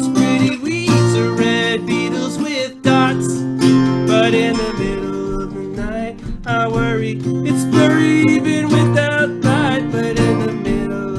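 Acoustic guitar strummed steadily under a solo voice singing a slow song.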